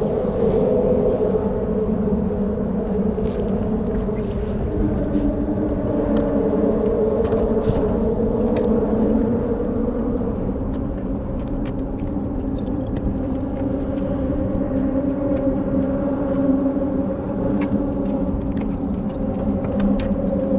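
A small rental skiff's outboard motor running steadily under way over a low rumble. Its pitch shifts a little about four seconds in and again near the middle.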